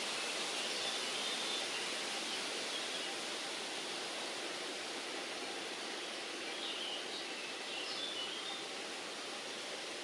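Steady outdoor ambient noise, an even hiss, with a few faint high chirps about a second in and again between seven and eight seconds.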